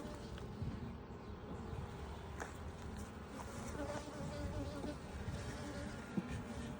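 Honey bees buzzing around an opened hive: a steady hum with wavering pitch, and a few faint clicks.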